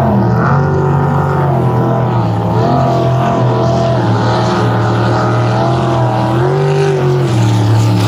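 Two jet drag boats, a Cummins 12-valve diesel and a big-block Chevy, racing at full throttle. The engines run loud and steady, their pitch wavering as they pull.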